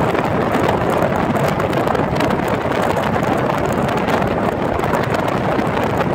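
Steady rushing wind on the microphone mixed with road noise from a moving car, heard through an open side window.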